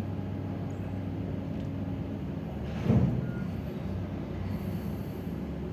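Steady low background hum and rumble of outdoor ambience, with a brief louder sound about three seconds in.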